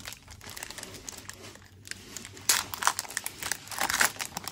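Foil booster-pack wrapper crinkling as it is handled, faint at first, then sharper, louder crackles in the last two seconds.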